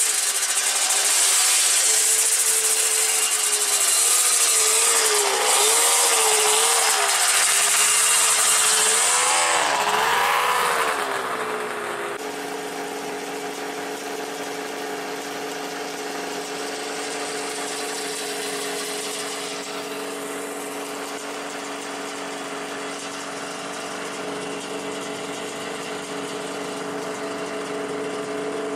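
Snowmobile engine running as the machine is ridden through snow, its pitch rising and falling with throttle under a steady hiss, for about twelve seconds; then it changes abruptly to the engine idling steadily at a lower level.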